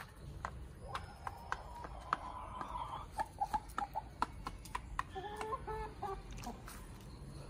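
Hens clucking softly while they peck into a plastic bowl, their beaks making many sharp taps. The clucking comes in two spells, about a second in and again around five seconds in.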